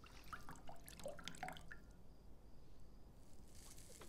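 Water dripping: a quick run of small plinking drops in the first couple of seconds, then a soft hiss near the end.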